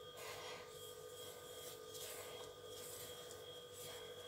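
A hand rubbing a dry, crumbly flour-and-oil mixture in a glass bowl: a faint rustling, stroke after stroke.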